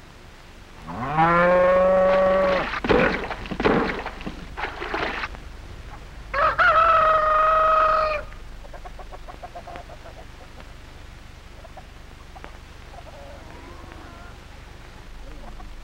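Rooster crowing twice, each crow rising and then held as a long note, with short broken calls between. Faint hen clucking comes near the end.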